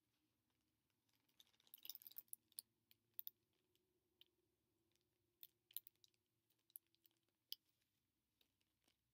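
Faint clicks and taps of small objects being handled, a quick flurry about two seconds in, then scattered single clicks.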